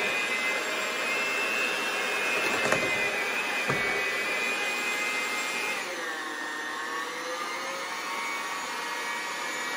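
Handheld electric mixer running with its beaters in cake batter in a glass measuring cup: a steady motor whine that drops in pitch about six seconds in. Two brief clicks come near the start.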